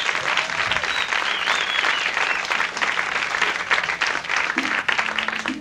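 Audience applauding and whistling at the end of a song. A few low, sustained guitar notes come in near the end.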